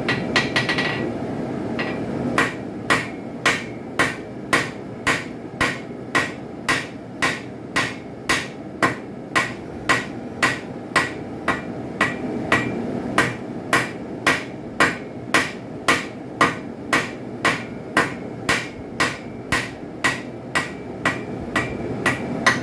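A hand hammer striking a hot railroad spike on an anvil while forging a knife blade, in a steady rhythm of about two blows a second that begins about two seconds in. Each blow rings briefly, and a steady low rumble runs underneath.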